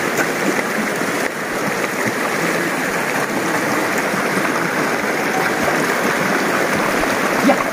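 Shallow mountain river rushing steadily over stones.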